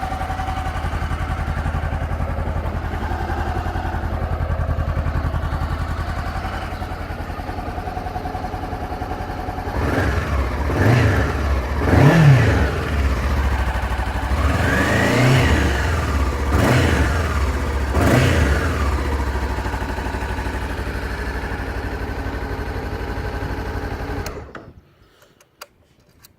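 Honda CBR500R's parallel-twin engine idling on its stock exhaust, then blipped about five times, each rev rising and falling in pitch, before settling back to idle. The sound cuts off suddenly near the end.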